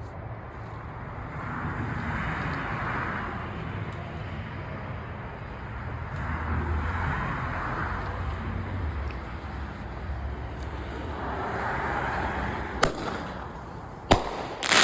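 Small consumer firework going off: a hiss that surges three times, then sharp cracks near the end, the last one the loudest.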